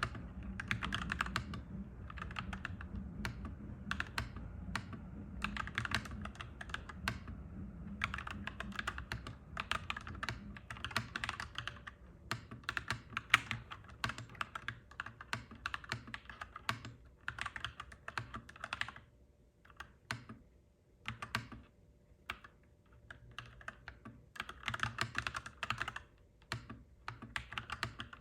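Clacky mechanical keyboard typing, fast runs of keystrokes broken by short pauses. A low rumble sits underneath for the first several seconds and returns near the end.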